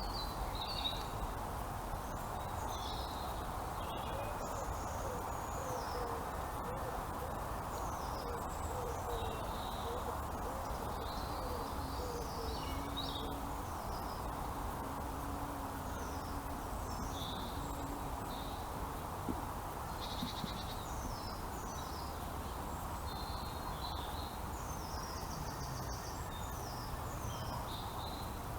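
Several birds chirping and singing in short high phrases, with a low call repeated in a slow series of notes for a stretch in the middle, over a steady background rush.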